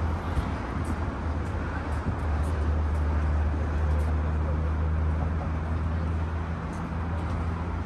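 Road traffic crossing the Sydney Harbour Bridge: a steady low rumble that swells in the middle, with a faint steady hum joining about halfway through.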